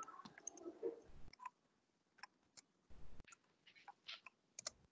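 Near silence broken by a few faint, irregular clicks.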